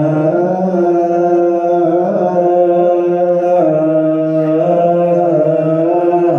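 Ethiopian Orthodox liturgical chant: the mesbak, the psalm verse chanted before the Gospel reading, sung by a voice in long held notes that slide slowly from pitch to pitch.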